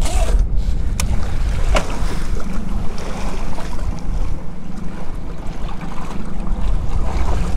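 Wind buffeting the microphone in a steady low rumble, over the wash of waves against a boat's hull, with a few sharp clicks in the first two seconds.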